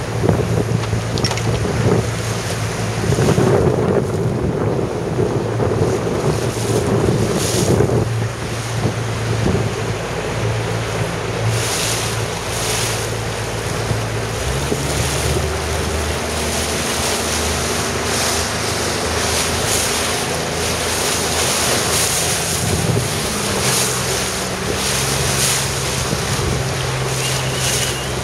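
Wind buffeting the microphone and water rushing and splashing past a moving boat, over a steady low motor hum that drops in pitch about halfway through.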